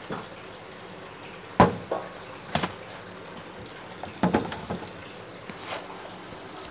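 Several sharp, irregular knocks and clicks, about six in all and bunched in two groups, over a steady faint hiss.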